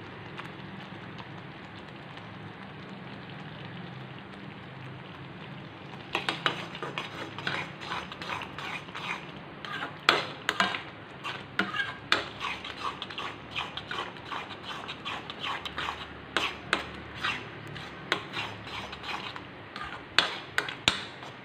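A steel spoon stirring a thick mango and coconut mixture in a metal pan, scraping and clicking against the pan in quick, irregular strokes from about six seconds in. Before that there is only a steady low hum.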